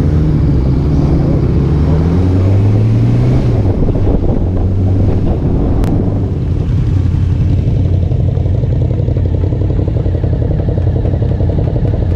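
Motorcycle engine heard from the rider's seat while riding in traffic. Its note climbs for the first few seconds, drops about three and a half seconds in, then runs steadily.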